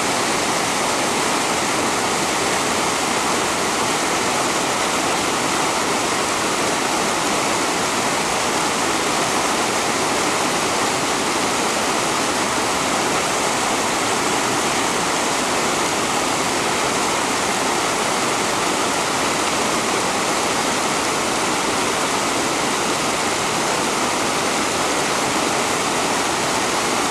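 Steady rush of a fast, clear river running over rocks, with white water churning close by.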